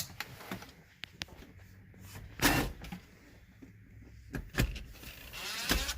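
Scattered clicks and knocks of a Phillips screwdriver and the plastic hood-release trim being worked loose inside a car, with one louder scrape about two and a half seconds in.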